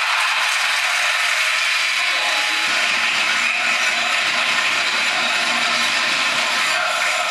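Steady, dense crowd din in a packed basketball hall during live play.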